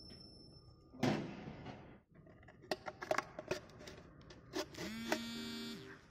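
Downspout elbow-forming machine working on steel downpipe: a loud metal clang about a second in, then a run of sharp clicks and knocks, and a short steady hum near the end.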